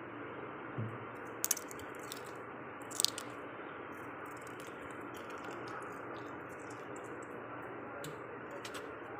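Freezer frost being bitten and chewed: a few sharp, crisp crunches, the loudest about a second and a half and three seconds in, with fainter ones near the end, over a steady hiss.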